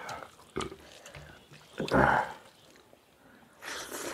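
Eating sounds of people eating rice and fish curry by hand from steel plates, mouth and wet food noises: a few sharp smacks early on, a louder burst about two seconds in, and a breathy hiss near the end.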